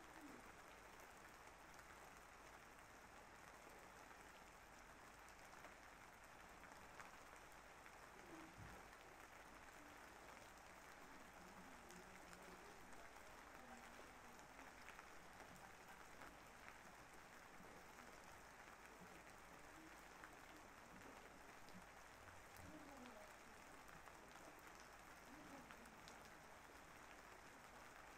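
Faint, steady rain falling.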